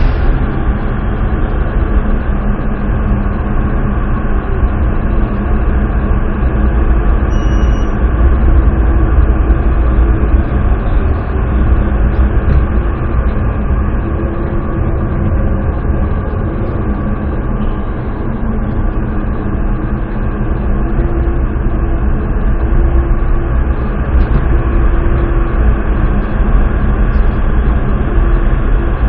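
Driverless metro train running through a tunnel, heard from inside the train: a steady heavy rumble of wheels on rails with a faint steady hum over it.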